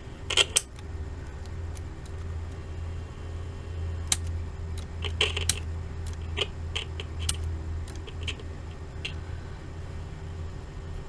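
Steady low electrical hum with scattered crackles and sharp clicks from a powered Sony TC-55 cassette recorder whose drive motor is trying to spin but does not turn, a fault in the unit.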